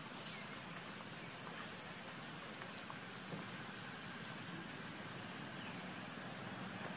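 Outdoor forest ambience: a steady high-pitched hum runs throughout, with a few faint short chirps and small ticks over a soft background hiss.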